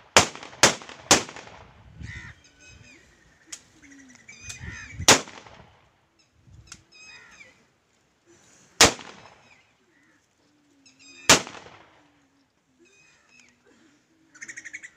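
A funeral gun salute: police rifles fired into the air. Three shots come in quick succession at the start, then single shots at intervals of a few seconds.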